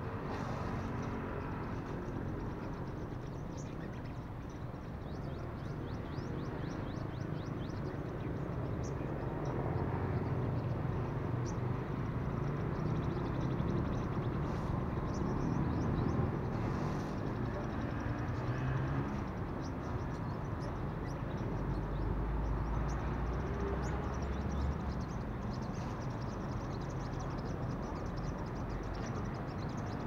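Road traffic rumbling steadily, swelling as vehicles pass, with short, thin, high sunbird chirps repeated throughout.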